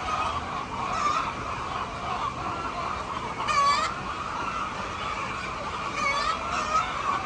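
A flock of chickens clucking and calling continuously, with louder squawks about three and a half seconds in and again around six seconds.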